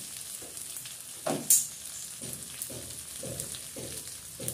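Ground spices frying in hot oil in a kadai: a steady sizzle, with one sharp clack about a second and a half in.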